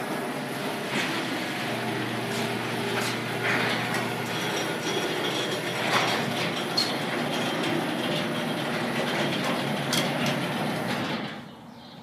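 Sectional steel garage door opening under an electric rail opener: steady motor hum with rollers rattling and clicking along the tracks. It stops about 11 seconds in, when the door is fully open.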